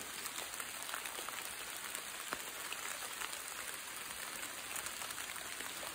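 Steady rain falling on fallen leaves: an even hiss dotted with the sharp ticks of single drops.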